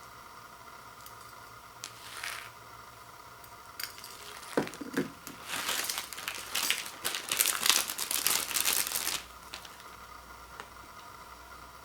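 Plastic wrapper of instant ramen noodle packets crinkling as it is handled: a short crinkle about two seconds in, then a longer run of crinkling from about four to nine seconds in.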